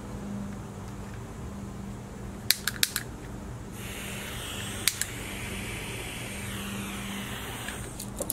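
Small items handled on a soldering bench: a quick run of four sharp clicks about two and a half seconds in, two more around five seconds and one near the end, over a steady low hum and soft hiss.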